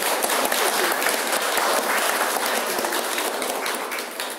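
Audience applauding: steady clapping from many hands, dying down at the end.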